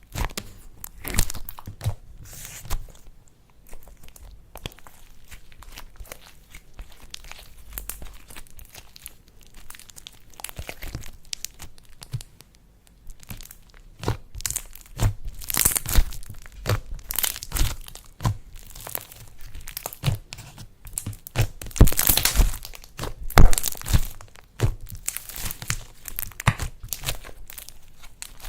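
Slime being squeezed and worked by hand with mixed-in bits, giving irregular crackles, pops and crunches that grow denser and louder about halfway through.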